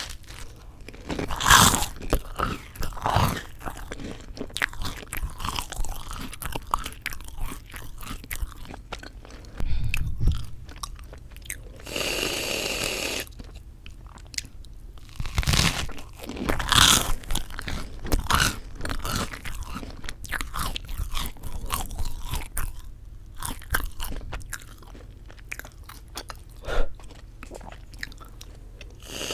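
Close-miked biting and chewing of crisp toasted white bread with whipped cream: loud crunches at each bite, with softer chewing crunches in between. About twelve seconds in there is a short steady hiss lasting about a second, as whipped cream is sprayed from the can.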